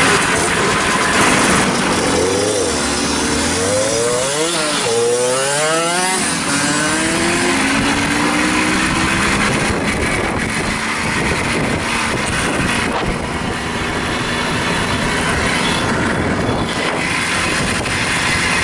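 Small single-cylinder two-stroke Babetta moped engines pulling away. Their pitch rises and dips over the first several seconds, then settles into a steady run at cruising speed.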